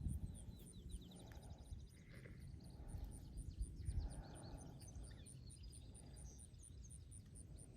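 Faint outdoor ambience: a bird singing runs of quick, high trills over a low rumble.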